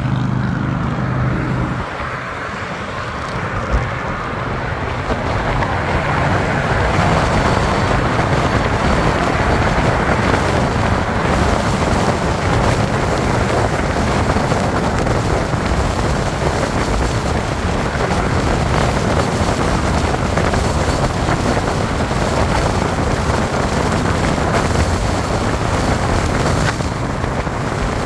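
Wind rushing over the microphone of a Miku Super electric motorcycle as it accelerates from a standstill to about 80 km/h. The noise grows louder over the first several seconds and then holds steady, mixed with road noise from passing cars.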